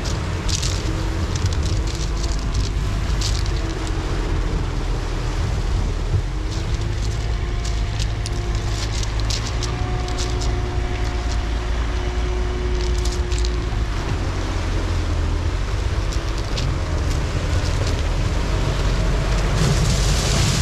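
Wind noise on the microphone over the diesel engine of a Sherp amphibious ATV running as it swims in the lake, the engine's drone wavering slightly in pitch. Near the end, a rush of splashing water as the Sherp drives up out of the waves.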